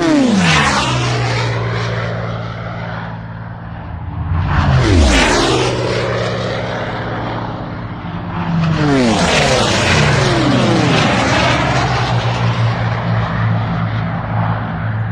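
Loud propeller aircraft engine noise with steady low engine tones. The pitch falls in sweeps near the start, about five seconds in, and again around nine to eleven seconds in.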